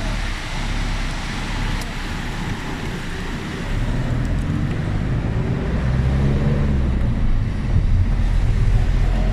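City bus running, heard from inside the cabin with road noise. Its low engine note grows louder from about four seconds in, as the bus pulls ahead.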